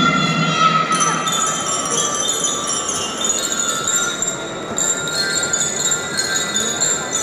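Marching band's mallet percussion, glockenspiel-type bells, playing a melody of high, ringing, sustained notes with almost no drums underneath.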